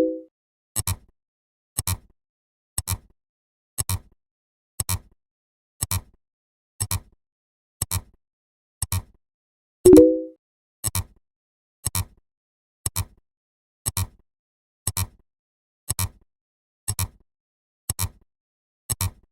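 Sound effects ticking off a count: a short, sharp click once a second, with a louder tone of a few stacked pitches, fading over about half a second, marking every tenth beat. The louder tone falls at the very start and again about ten seconds in.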